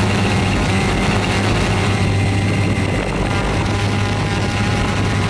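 Quadcopter drone's propellers and motors running steadily, heard through the drone's own onboard microphone as a loud, even hum made of a strong low tone with many higher tones above it.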